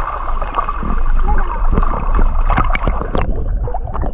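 Water churning with many small irregular splashes as a dense crowd of fish jostles at the surface, over a steady low rumble.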